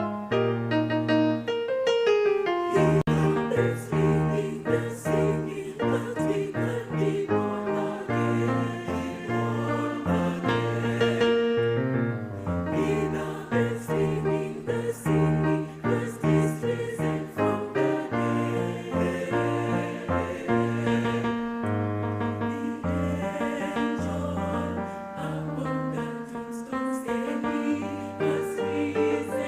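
Choir singing with piano or keyboard accompaniment. A short falling run of notes opens, and deep low notes join about three seconds in.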